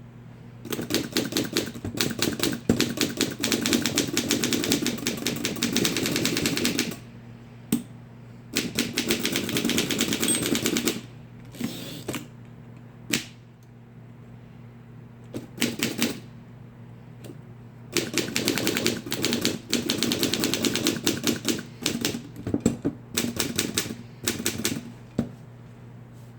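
Rapid typing on keys: fast runs of clicks lasting a few seconds each, broken by short pauses and a few single strokes, over a steady low hum.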